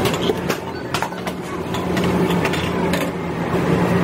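Steady mechanical hum of shop equipment, with scattered sharp clicks and knocks in the first couple of seconds.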